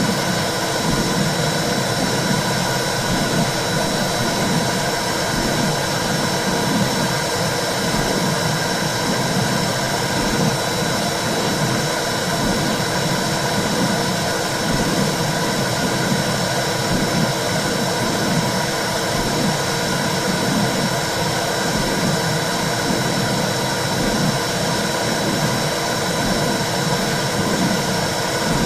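Womb sound for soothing a baby: a steady whooshing rush with a regular low pulse repeating throughout.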